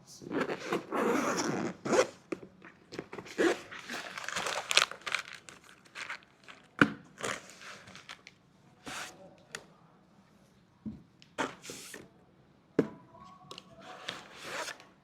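Packaging being opened and handled: a run of tearing and rustling noises over the first few seconds, then scattered sharp clicks, knocks and short crinkles.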